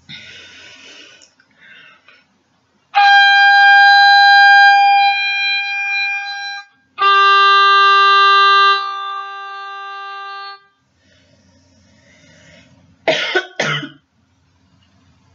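Oboe playing two long held notes, a high one and then one about an octave lower, each swelling and fading. About thirteen seconds in, the player coughs twice.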